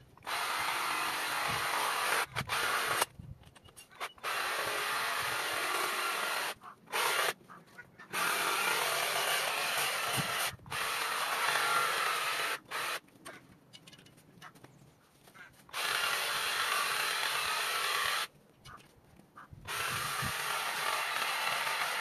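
A cordless power tool cutting back ivy, run in repeated bursts of one to three seconds with short pauses between them.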